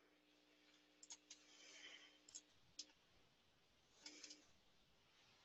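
Near silence with a handful of faint, short computer mouse clicks spread through it.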